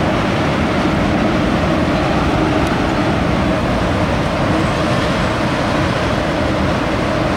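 Autorack freight cars rolling steadily over a girder railroad bridge: a continuous rumble of steel wheels on rail.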